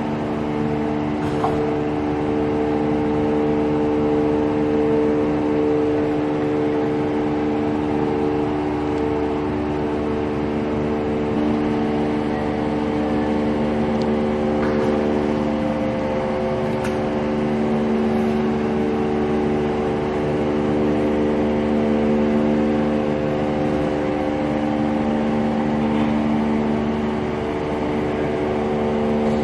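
PVD vacuum coating machine running during a coating run: a steady mechanical hum with several held tones, and a couple of faint ticks.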